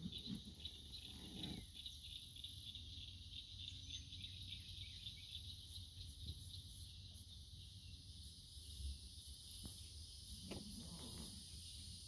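Faint, steady chorus of insects buzzing high-pitched, over a low rumble, with a few soft rustles near the start and about ten seconds in.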